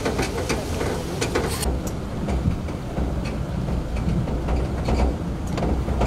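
A vehicle moving through floodwater: a steady low rumble, with scattered clicks and knocks.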